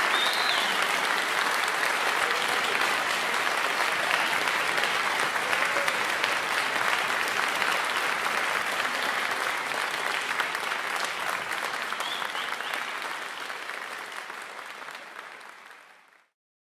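Concert audience applauding steadily, with a few short whistles, fading out to silence near the end.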